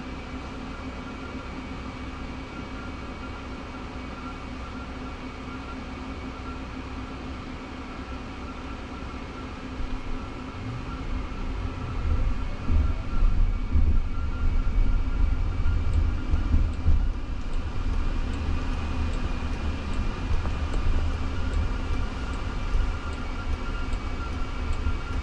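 Cabin noise in a Waymo Jaguar I-PACE electric car: a steady hum with a few level tones while it waits. About ten seconds in, a low road and tyre rumble rises as the car pulls away, and it carries on while the car drives.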